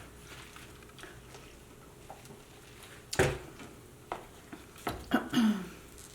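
Close-up eating sounds: a few scattered smacks and clicks of chewing and food handling, the loudest about three seconds in, over a faint steady room hum.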